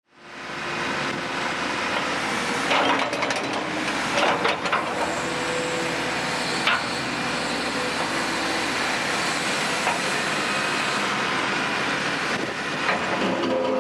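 Caterpillar 320BL excavator's diesel engine running steadily, with a few sharp clanks and knocks about three, four and a half and seven seconds in, and again near the end.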